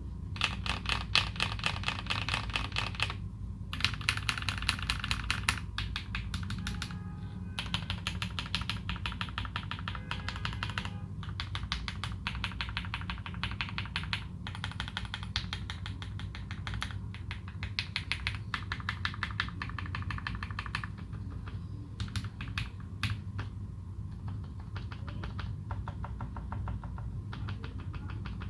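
Typing on a Leopold FC660M mechanical keyboard with modded Cherry Retooled Black linear switches and GMK Dolch keycaps. Fast runs of keystrokes come in bursts with short pauses, thinning to scattered single presses over the last several seconds.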